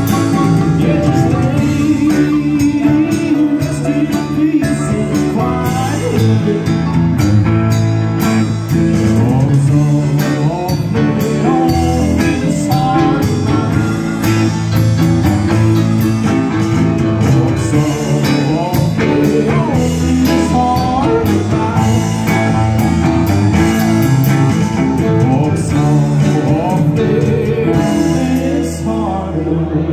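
Live band playing a song on electric guitars and a drum kit.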